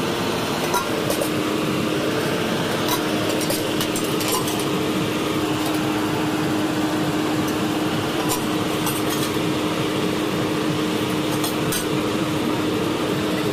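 Steel ladle clinking now and then against steel pots and a strainer as boiled sweet corn kernels are scooped and stirred, over a steady background din with a constant low hum.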